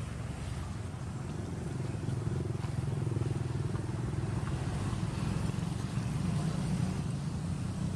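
A motor vehicle's engine running steadily, a low hum that grows a little louder about two seconds in.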